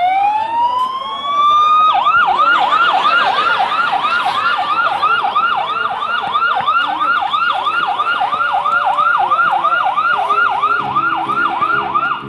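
Electronic emergency siren: a slow wail that falls and rises in pitch, switching about two seconds in to a fast yelp of about three sweeps a second, which cuts off at the end.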